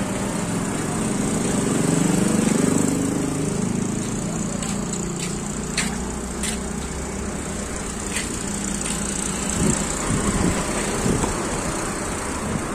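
Steady road traffic and engine noise, swelling about two seconds in, with a few faint sharp clicks near the middle.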